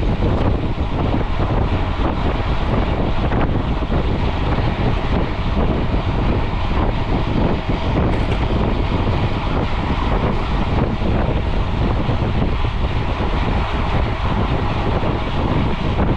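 Steady rushing of wind over a GoPro's microphone as it rides along on a mountain bike at race speed.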